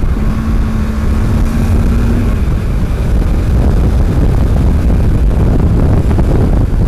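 Motorcycle riding at road speed, heard through a helmet-mounted Sena 10C microphone: heavy wind rumble over the engine running, with a steady engine note in the first two seconds.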